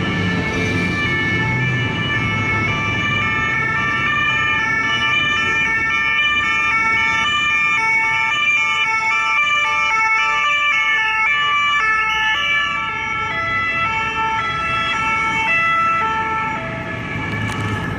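French two-tone emergency sirens (deux tons) sounding continuously, each stepping back and forth between two notes, over the rumble of heavy road traffic. The sirens grow a little quieter near the end.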